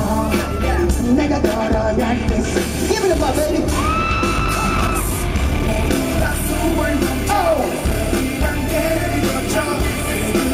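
Live pop concert music heard from the audience: a heavy dance beat with male singing and yells over it, and one high held note about four seconds in.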